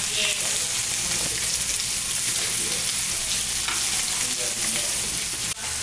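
Breaded snook fillet frying in hot oil in a skillet: a steady sizzle, with a sudden break near the end.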